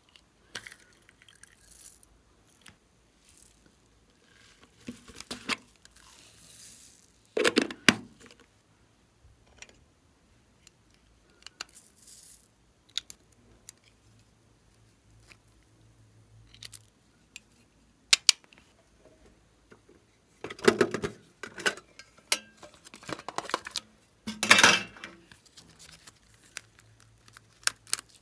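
Hands handling plastic cosmetic cases and lipstick tubes, with scattered clicks and taps of hard plastic. Later come short bursts of rustling and crinkling as a plastic bag of slime is opened.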